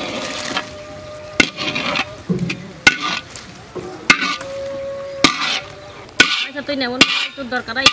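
A large iron wok being emptied of fried egg, with sharp knocks of the wok and spatula about once a second over a steady sizzle from the hot pan and gravy. Voices can be heard near the end.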